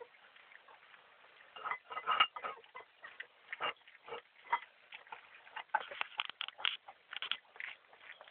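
Boxer puppies eating from a shared dish: a fast, irregular run of wet smacking and chewing clicks, sparse at first and thickest a little past the middle.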